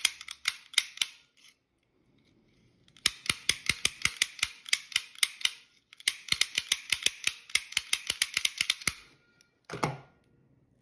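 Lock snap gun snapping rapidly as its trigger is squeezed over and over, about seven sharp clicks a second in three runs of a few seconds each, then a single duller clunk near the end.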